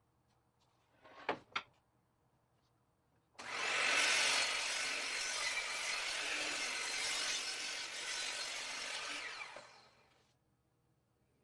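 Two short knocks of wood being handled, then a power saw cutting through a hardwood board for about six seconds, starting abruptly and dying away as the cut ends: trimming the panel and squaring its ends.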